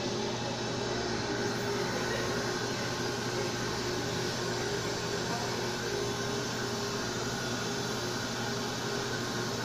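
Dental suction running: a steady hiss with a low hum, unchanging throughout.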